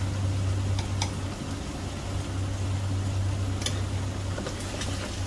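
Mutton frying in hot ghee in a wok, a steady sizzling hiss with a few faint pops, over a low steady hum.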